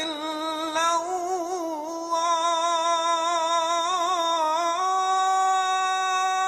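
A single voice chanting one long, ornamented held note that wavers in pitch, then steps up to a higher, steady held note about five seconds in: the drawn-out melismatic singing of the Islamic call to prayer (azan).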